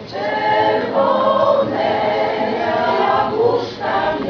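Women's choir singing together in sustained phrases, with a brief pause for breath a little before the end.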